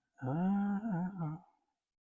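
A man humming one drawn-out note for just over a second, with a small wobble in pitch near its end, then silence.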